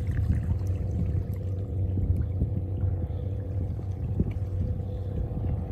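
Fishing boat's engine running steadily as it heads out across the bay, heard as a constant low hum, with small splashes of water lapping against the rocks close by.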